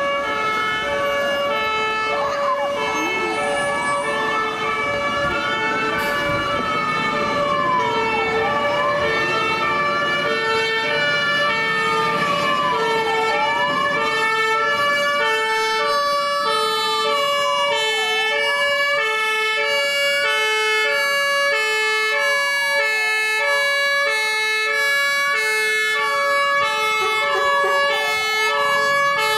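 Two fire-engine sirens sounding together, on vehicles responding to a call. One is a two-tone siren switching between a high and a low note about once a second. The other is a wail that rises and falls slowly, about every five seconds.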